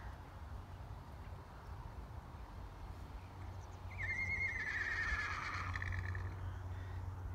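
A single animal call about four seconds in, lasting around two seconds and wavering as it falls in pitch, over a low steady rumble.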